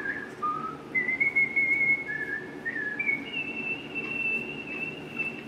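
A whistled tune of clear single notes that step up and down, then settle into a long high note held for over two seconds.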